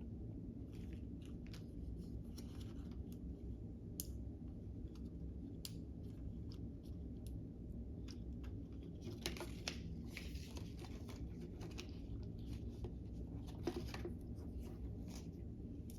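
Lego plastic pieces being handled: small clicks and short scratchy rustles as a part is pulled off the model, busiest about nine seconds in, over a steady low hum.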